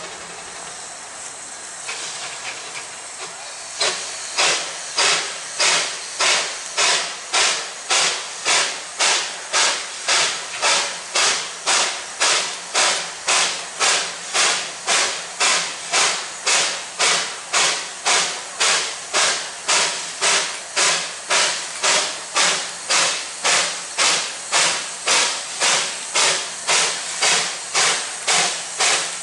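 Narrow-gauge steam locomotive: a steady hiss of steam, then about four seconds in, regular exhaust chuffs start at about two a second and keep an even beat.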